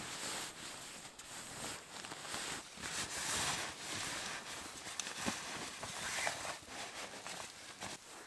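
Nylon rustling and crumpling as a down sleeping bag and its bag are pushed and arranged inside a tent, with a few soft clicks. It swells loudest about three seconds in.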